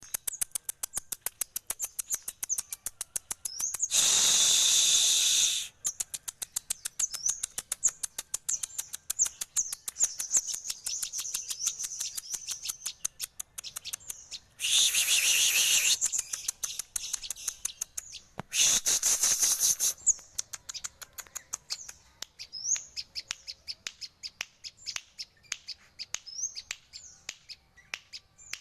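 A sogon sunbird singing: a fast, continuous stream of high ticking chips and short rising notes, broken three times by loud, dense buzzing trills lasting about one and a half to two seconds each.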